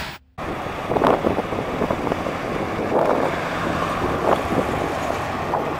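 1979 Chevrolet C10 pickup's 350 cubic-inch V8 running as the truck drives by at low speed, with wind buffeting the microphone in gusts. The sound cuts in after a short dropout just after the start.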